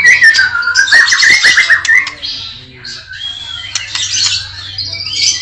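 White-rumped shama (murai batu) singing a loud, varied song: a gliding whistle and a run of rapid trills in the first two seconds, then quieter mixed short notes. The song is full of 'isian', phrases imitated from other birds.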